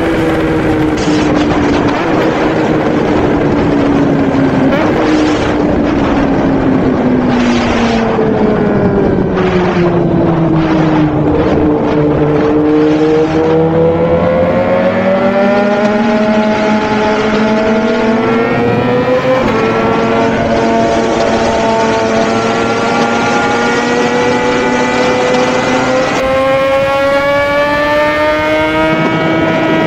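Suzuki GSX-R1000 inline-four engine running under way, its revs sinking slowly over the first dozen seconds, then climbing steadily.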